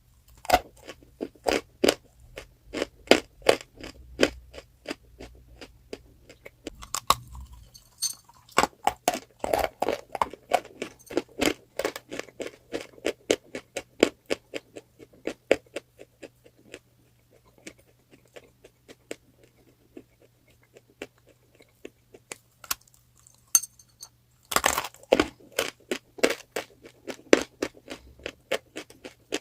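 Chalk being bitten and chewed up close: rapid runs of sharp, crunchy crackles that thin out for several seconds in the middle and pick up again near the end.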